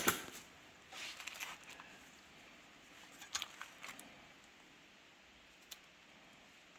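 Small clicks and scrapes of hand tools working at the retaining ring on a mini bike's clutch shaft: a sharp click at the start, a few scattered clusters of clicks about one and three and a half seconds in, and a single tick near the end.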